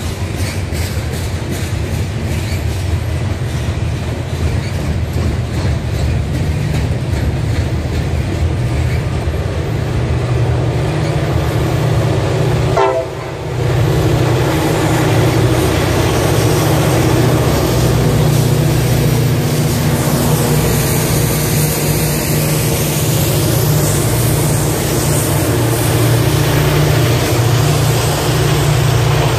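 Freight hopper cars rolling past with a steady rumble and regular wheel clicks over the rail joints. About a third of the way in, after a brief break, Norfolk Southern diesel helper locomotives at the rear of the train pass with a loud, steady low engine drone.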